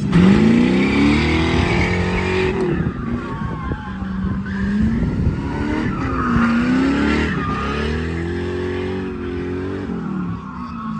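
Ford Mustang drift car sliding around a course. The engine note rises and falls over and over as the throttle is worked, with the rear tyres squealing and skidding underneath.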